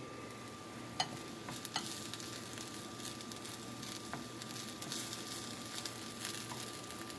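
Diced bacon sizzling in a hot skillet as it is stirred, with a few light clicks of the utensil against the pan.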